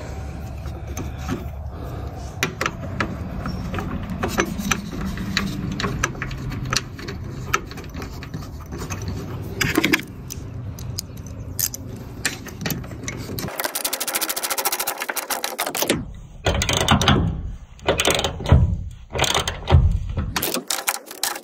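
Hand-tool work on metal: scattered clicks and knocks of a wrench and bolt, with a couple of seconds of rapid ratchet-wrench clicking about two-thirds of the way in.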